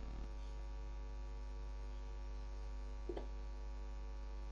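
Steady electrical mains hum on the recording, with one short click about three seconds in.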